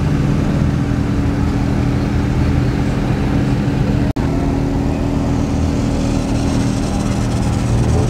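A car engine idling steadily, with a brief dropout in the sound about four seconds in.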